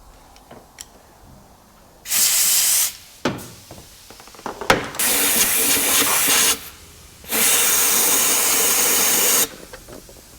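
Compressed-air blow gun blasting into a spark plug hole in three bursts, about one, one and a half and two seconds long, clearing out metal shavings left by tapping the threads. Between the first two blasts there are a few sharp knocks.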